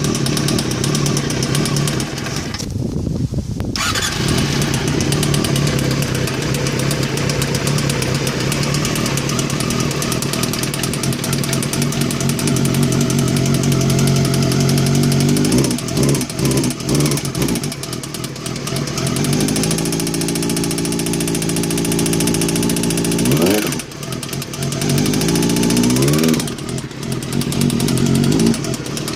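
Honda Hornet 250's inline-four engine running, with the revs changing a few times in the second half and one rising rev near the end. It is making an abnormal noise whose cause the owner does not know.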